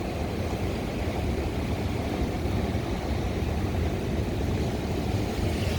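Strong gusting wind blowing, a steady low rumble.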